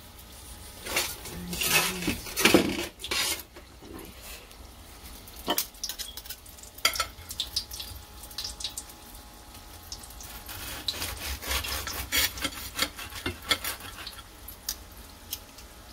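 A knife sawing through the crisp fried crust of a vegetable spring roll, the crust crackling, with metal tongs and the knife clicking and scraping on a ceramic plate. The crackles come in busy bunches near the start and again past the middle.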